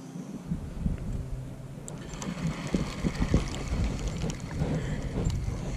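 Wind gusting on the microphone, a low rumble that comes in about half a second in, with light knocks and lapping of water against a kayak's hull.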